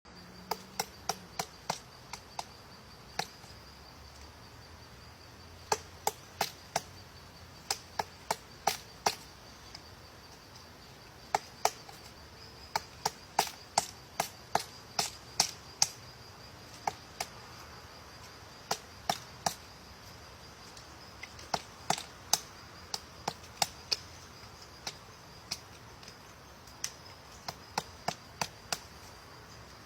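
Woodpecker excavating wood: single hard pecks at irregular intervals, often in quick runs of several strikes with pauses between. A steady high insect trill runs underneath.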